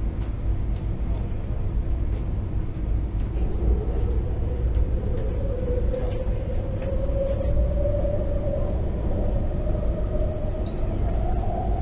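Cabin sound of an MTR Tuen Ma line IKK-Train electric multiple unit under way: a steady low rumble of wheels on the track, with a traction motor whine that rises slowly in pitch from about four seconds in as the train gathers speed, and a few scattered light clicks.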